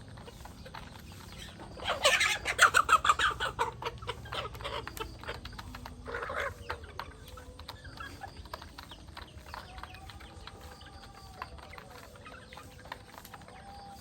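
Chickens clucking, with a loud rapid run of clucks about two seconds in lasting about two seconds and another short burst around six seconds. Fainter drawn-out calls follow near the end.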